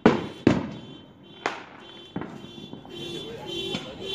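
Distant aerial fireworks bursting: two sharp bangs right at the start and half a second later, then two fainter pops around one and a half and two seconds in. A faint steady high tone carries on underneath.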